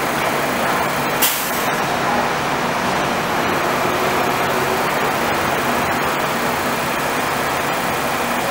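R160 subway train standing at an elevated station, giving a steady hiss and hum with faint even tones, and one sharp click about a second in.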